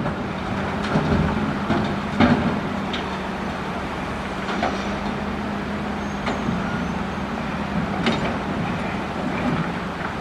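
Caterpillar excavator's diesel engine running steadily while the bucket digs coral rock, with scattered clanks and knocks of rock against steel.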